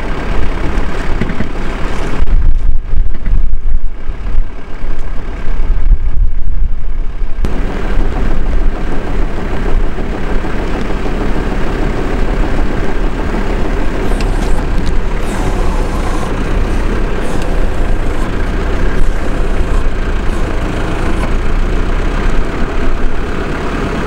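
Recovery truck's engine running steadily to drive its crane and winch while a stuck motorhome is hauled out on the cable, a heavy low rumble. The sound grows fuller about seven seconds in.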